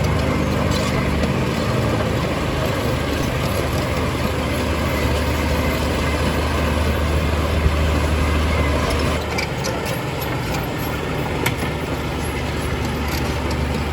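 Heavy diesel earthmoving machinery running steadily, with a deep engine hum and a few sharp metallic knocks. The low engine note drops about nine seconds in.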